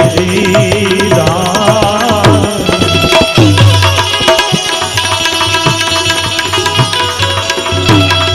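Live Indian devotional folk music: a singer's wavering, ornamented held note trails off about two and a half seconds in. Tabla drumming and sustained instrumental notes continue after it.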